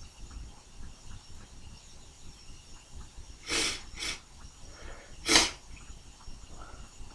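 Sneezing: a sneeze about three and a half seconds in, a short second one right after it, then a louder single sneeze about five seconds in.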